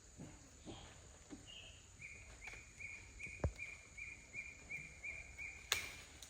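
A bird repeating a short, high call about two and a half times a second, roughly a dozen times, over faint outdoor background. A dull thump comes in the middle and a sharp knock near the end.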